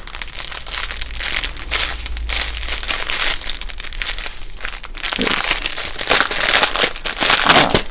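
Small plastic bags of diamond painting drills crinkling and rustling as they are handled, in a run of irregular crackles.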